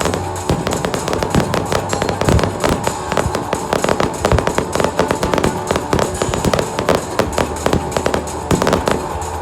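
Fireworks bursting in quick succession: a dense, irregular run of sharp bangs and crackles.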